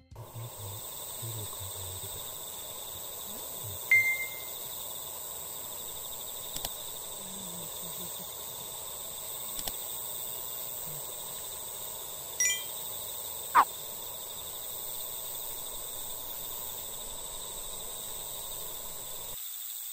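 Steady high-pitched insect chorus, cricket-like, with a few short ringing, chime-like tones about four and twelve seconds in and a brief falling whistle just after.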